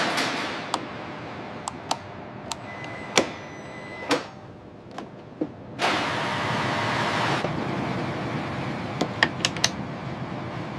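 Workshop tool sounds: a hiss at the start and another lasting about a second and a half about six seconds in, with scattered sharp clicks and ticks and a quick cluster of clicks near the end.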